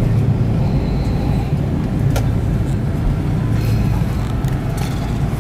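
Steady low rumble in the cabin of an Airbus A330-200 on the ground after landing: engine and rolling noise as the airliner taxis. A single sharp click sounds about two seconds in.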